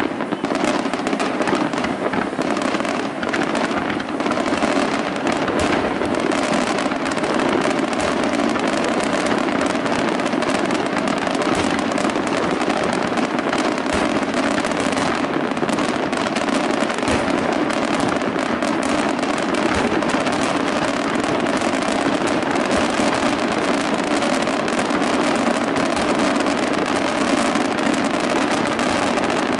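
Aerial firework shells bursting in a dense, continuous barrage, the bangs running together into a steady rumble with crackle.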